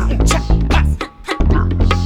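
Background music with bass guitar, guitar and a steady beat of sharp drum hits.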